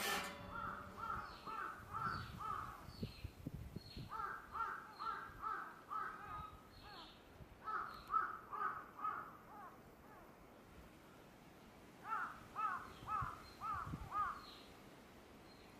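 A crow cawing in runs of five or six calls, about two to three calls a second. There are four runs with short pauses between them.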